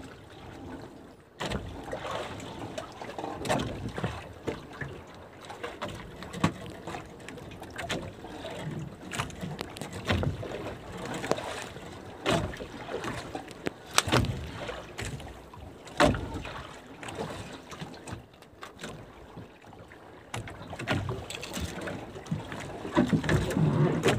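Scattered knocks and bumps on a small fishing boat as a freshly caught skipjack tuna is handled, over a low wash of wind and water.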